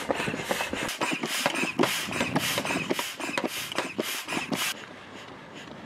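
Air pump inflating an inflatable dinghy: a quick, even run of whooshing pump strokes, about three a second, which stops about four and a half seconds in.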